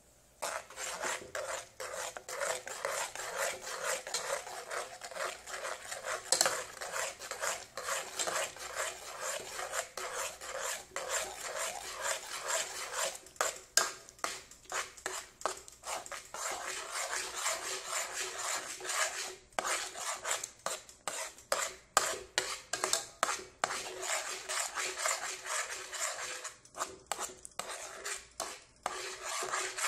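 Metal spoon stirring oatmeal in an aluminium pot, scraping against the bottom and sides in quick, rapid strokes that become slower, separate scrapes in the last third.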